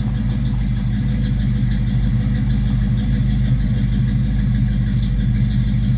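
1969 Ford Mustang Mach 1's V8 idling steadily at low idle, warming up after a cold start.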